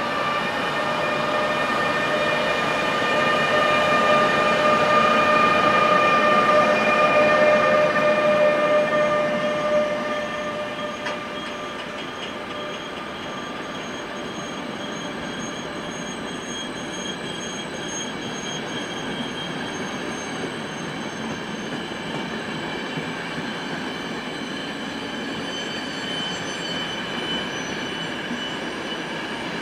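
ÖBB Class 1116 electric locomotive passing, its electric drive giving a steady whine of several pitches that is loudest for the first nine seconds or so. After that the passenger coaches roll by with steady wheel-on-rail noise and faint high wheel squeals.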